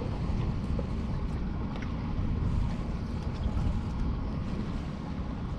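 Wind buffeting the microphone in a steady low rumble, with faint water noise around a small boat and a few light clicks.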